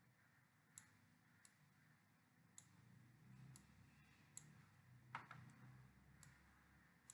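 Faint computer mouse clicks, roughly one a second at irregular intervals, over near-silent room tone; the loudest click falls a little past five seconds in.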